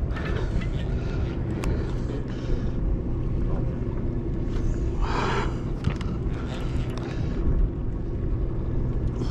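Sportfishing boat's machinery droning steadily: a low, even hum.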